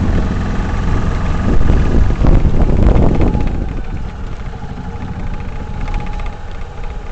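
Tracker OX400 side-by-side UTV's engine running as it is driven over rough ground, loud with a few knocks for the first three seconds or so, then easing off to a quieter, steadier run about four seconds in.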